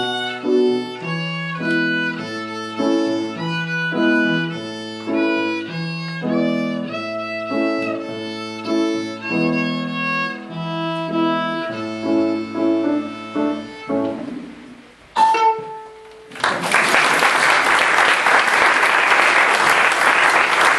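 A child playing a violin piece with piano accompaniment, the piano's lower notes sustained beneath the violin. The piece ends about 14 seconds in, a last short note sounds about a second later, and audience applause starts about 16 seconds in and continues.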